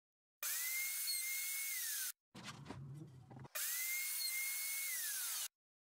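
Router motor running in two bursts of about two seconds each, a high whine that rises at the start of each burst and drops in pitch near its end. A short, quieter, lower rumbling noise comes between them.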